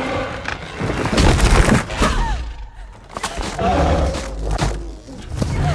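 Film battle sound effects of a giant gorilla fighting tyrannosaurs among jungle vines: heavy thuds and crashes, loudest about a second in and again around four seconds.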